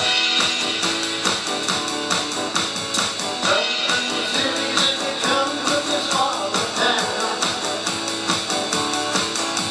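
Live rock music: a strummed electric guitar over an electronic drum kit keeping a steady beat, with no singing.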